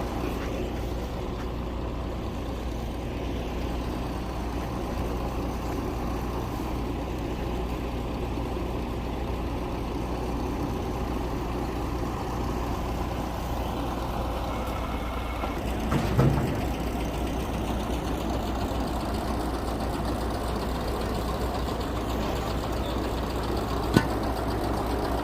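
Crane truck's engine idling steadily with a low rumble. There is a brief clunk about two-thirds of the way through and a sharp click near the end.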